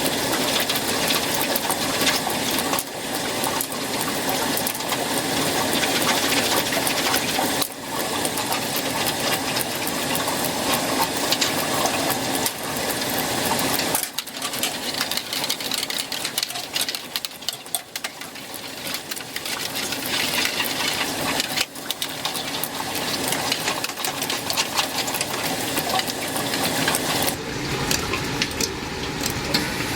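Water heater draining through its open drain port: a steady gush of water with a rapid sputtering, rattling patter as hard-water scale and sand wash out with it.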